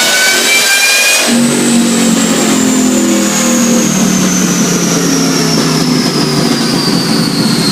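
2003 Ford F-150 SVT Lightning's supercharged V8 revving with rising pitch, then about a second in the sound changes abruptly and a high whine falls steadily in pitch as the revs drop.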